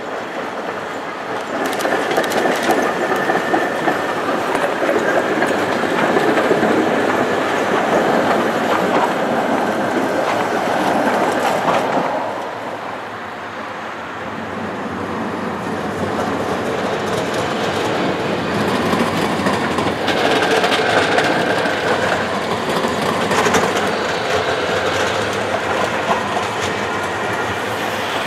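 Tatra trams running over street track, their steel wheels clattering across rail joints and points. The sound eases off about halfway through, then builds again as another tram approaches.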